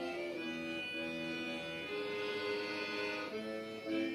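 Music: a slow melody of long held notes, on a sustained instrument of the reed or bowed kind.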